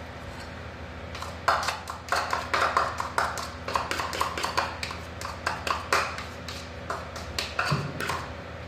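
Small ceramic bowl tapping and clinking against the rim of a stainless steel mixing bowl as chopped red onion is knocked and scraped out of it: a quick, irregular run of light taps starting about a second in.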